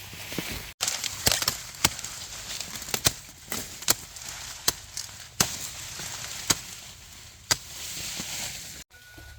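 Dry corn plants rustling and crackling, with a sharp snap about once a second, typical of corn being harvested by hand.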